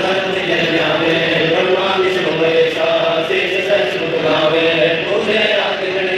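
Men chanting a devotional recitation over loudspeakers in long held lines that shift in pitch every second or so, without a break.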